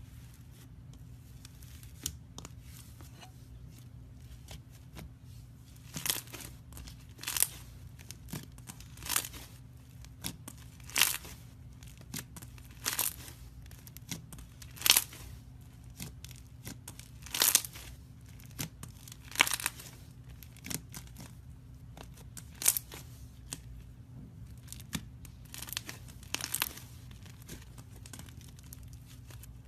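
Iceberg slime being pressed and squeezed, its dried crust crackling and crinkling in about a dozen separate bursts, one every second or two, over a faint steady low hum.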